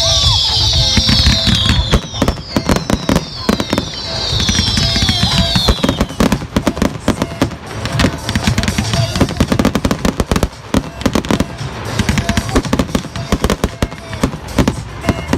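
Fireworks going off in quick succession, with many sharp bangs and crackles. Over the first six seconds there is a run of falling whistles, and music plays underneath.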